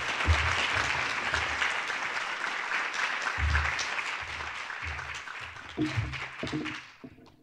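Audience applauding, dying away near the end, with dull low thuds underneath.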